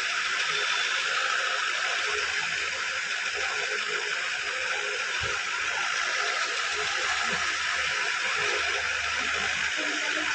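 Steady, even hiss of background noise, with no clear chewing or other distinct sounds in it.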